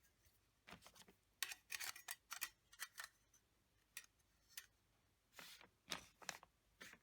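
Handling noises: an irregular series of about a dozen short, sharp clicks and brief scrapes, some in quick clusters.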